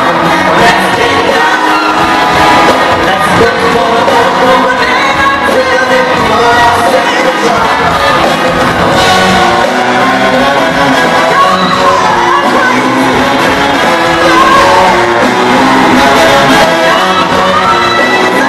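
Live funk-rock band with horns, electric guitars and drums playing loud, with a voice singing and shouts from the crowd, heard from among the audience.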